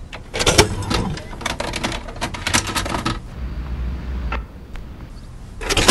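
A VHS cassette being fed into a front-loading VCR: a quick run of plastic clicks and clatter, a short low motor hum about halfway through, a single click, then a loud clunk near the end as the machine takes the tape.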